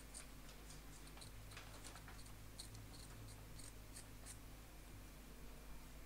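Faint, irregular scratching of a scalpel blade scraping adhesive from around the A8 CPU on an iPhone 6 logic board, with a low steady hum underneath.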